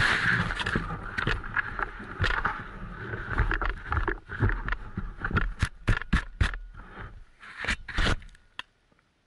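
Wooden sled sliding and scraping over snow as it slows, with a dense rushing sound at first that breaks up into separate sharp scrapes and knocks. It goes quiet a little before the end as the sled comes nearly to a stop.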